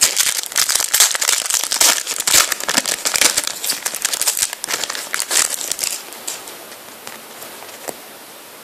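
Foil wrapper of a Panini FIFA 365 trading-card packet crinkling as it is handled and opened, with a dense run of sharp crackles that dies down after about six seconds to a few faint rustles.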